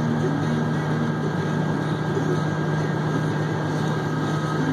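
Haul truck's diesel engine running steadily, a constant low drone heard from inside the cab.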